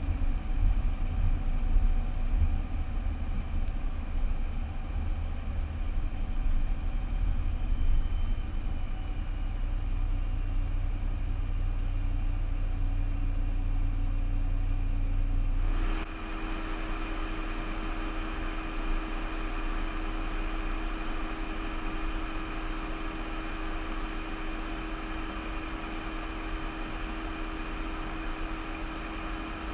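Car driving, heard through a car-mounted camera as a steady low road and engine rumble. About halfway through the sound changes abruptly to a quieter, steadier hum with a faint constant whine.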